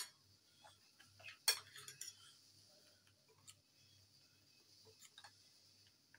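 Metal spoon clinking and tapping against a glass bowl as meat chops are turned in a thick yogurt marinade: a few scattered clinks, the loudest about a second and a half in.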